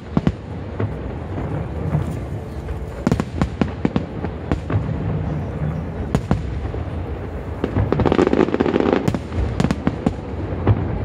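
Aerial fireworks bursting: a run of sharp, irregular bangs, growing denser and louder about eight seconds in.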